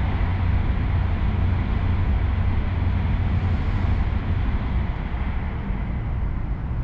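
Steady cabin noise inside a Tohoku Shinkansen car standing at a station platform: a low rumble with a hiss over it, easing off a little near the end.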